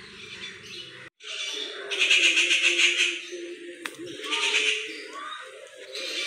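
A bird calling in two harsh, rapidly pulsed, chattering bursts over a steady low hum, with a sharp click between them.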